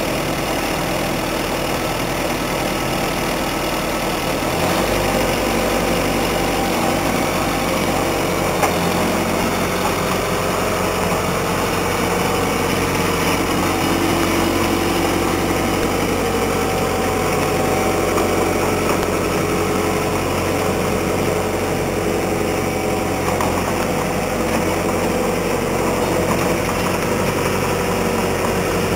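Vermeer SC60TX stump grinder's engine running steadily while the tracked machine is driven and turned by remote control. Its low note gets fuller about five seconds in.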